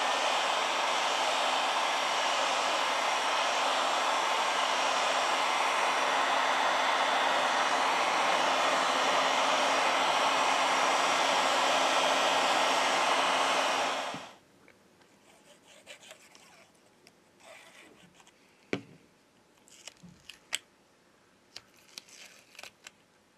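Hot-air heat gun blowing steadily over a phone's frame, an even rush of air with a faint steady hum, cutting off suddenly about fourteen seconds in. After it, faint clicks and scrapes of small phone parts being handled.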